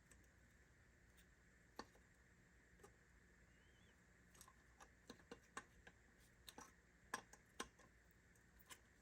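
Faint, scattered clicks and ticks of a small screwdriver prying up the little tabs on a Ford Model T ignition and headlight switch, coming more often in the second half.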